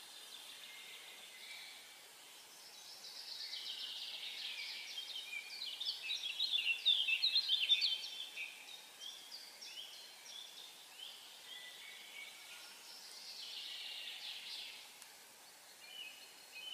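Many small birds chirping together in a dense chatter of short calls that swells to its loudest a little before halfway, then fades and comes back more softly later on, over a faint steady hiss.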